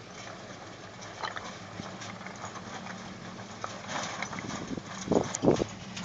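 Old pickup truck crawling up a slope of loose rock: stones crunching and clacking under the tyres, with the engine running faintly beneath and two louder thuds near the end.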